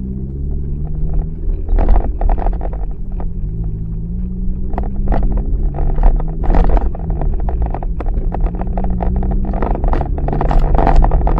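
Car engine running while driving, its note rising and falling as the car speeds up and slows, over a low road rumble. Irregular knocks and thuds come through, thickest a couple of seconds in and again near the end.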